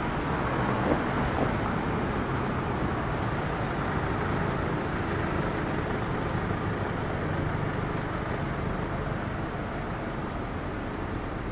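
Road traffic running steadily: a continuous low rumble of passing vehicles with street hiss.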